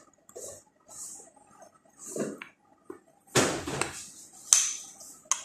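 Metal spoon stirring za'atar into olive oil in a ceramic bowl: short scraping strokes and clinks against the bowl, with a few sharp clicks and a louder knock about three and a half seconds in.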